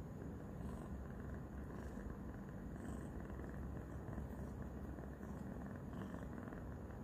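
Young tabby cat purring steadily and continuously.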